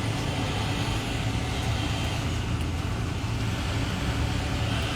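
Steady vehicle engine hum and road traffic noise.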